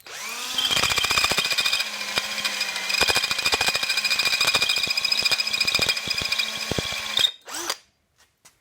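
Electric hand drill spinning up and drilling into a broken metal stud, a steady whine with rapid chattering. It eases off briefly near two seconds in and stops about seven seconds in. The dull bit is barely cutting.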